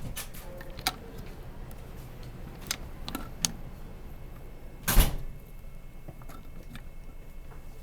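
Power steering pump parts being handled during reassembly: a few light metallic clicks, and one loud knock about five seconds in.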